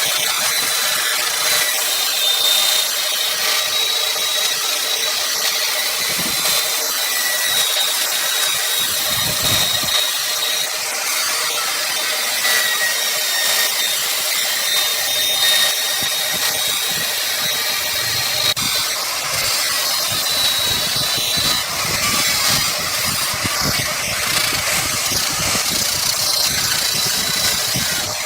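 Wood lathe running with a tool cutting the spinning wood: a steady hiss with a faint, slightly wavering high whine.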